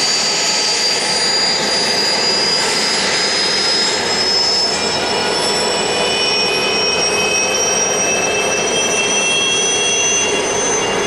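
Alouette III helicopter's turbine running on the ground before lift-off: a steady rush of engine and rotor noise under a high turbine whine that rises slowly in pitch as it spools up. A second, lower whine joins about five seconds in and also climbs.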